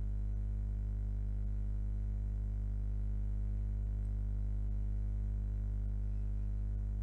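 A steady, unchanging low hum with a series of evenly spaced overtones, like electrical mains hum or a held synthetic drone.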